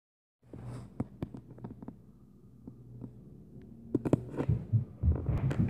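Footsteps stomping on the floor of the flat upstairs, heard through the ceiling as dull low thumps mixed with sharper knocks over a low hum. The thumps grow heavier and come faster about four seconds in.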